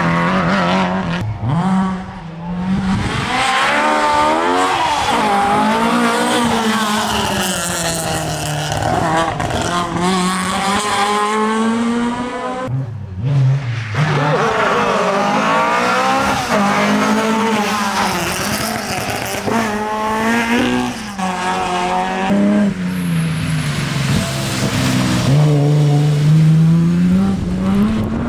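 Historic rally cars driven flat out past one after another, the engines revving hard and falling away again over and over as the drivers change gear and brake for corners. There is a short break in the sound about halfway through.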